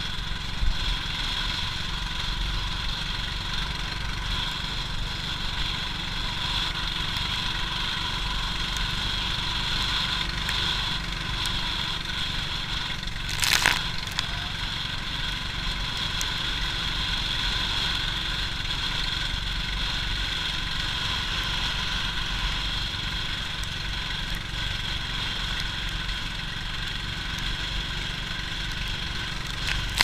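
Outrigger boat's engine running steadily under way, with a steady whine over a low rumble. A short loud burst of noise about halfway through.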